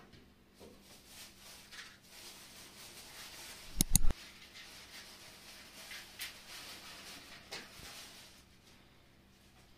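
A match struck on a matchbox: a quick cluster of sharp scrapes about four seconds in, the loudest sound here, over a soft hiss. A smaller click follows near the end.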